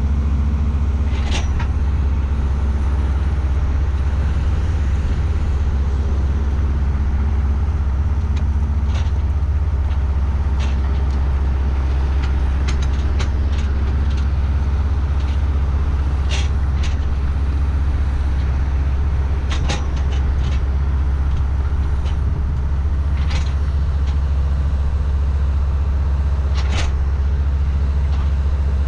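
Tractor engine running steadily as a low drone, with a dozen or so short clicks and rattles scattered through it.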